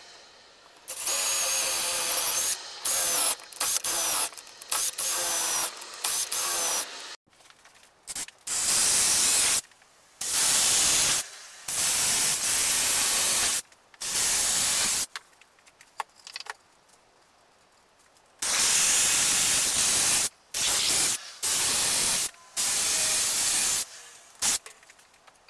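Cordless drill boring holes into pallet wood, run in many short bursts of a second or two with pauses between.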